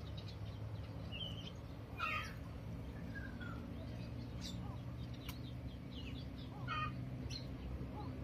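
Birds chirping: a handful of short, separate calls, some gliding down in pitch, over a steady low hum.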